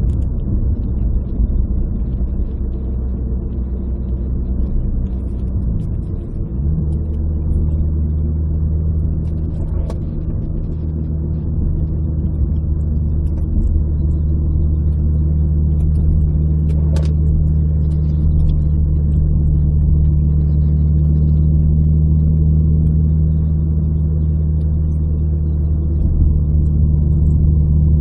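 Renault Clio RS 172's 2.0-litre four-cylinder engine running under way, heard from inside the cabin. Its note shifts about six seconds in, then holds a steady pitch and slowly grows louder. There is a single sharp click about seventeen seconds in.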